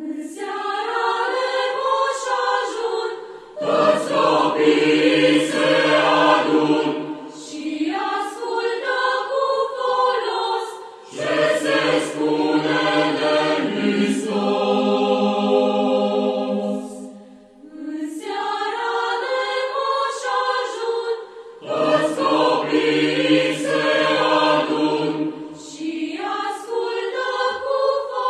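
A choir singing a slow song in several voices, phrase after phrase, with short pauses between the phrases.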